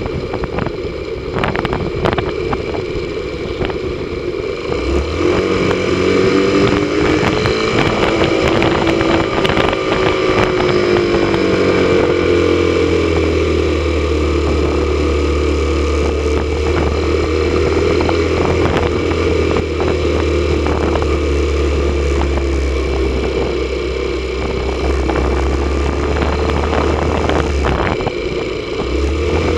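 Motorcycle engine running under way along a road. Its pitch rises a few seconds in, then eases back and holds steady, with a constant rushing noise of riding over it.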